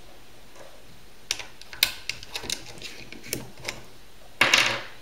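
UpLULA plastic-and-metal pistol magazine loader being squeezed as 9mm cartridges are pushed down into a stiff 17-round magazine: a run of sharp clicks about every half second, with one louder, longer burst of noise near the end.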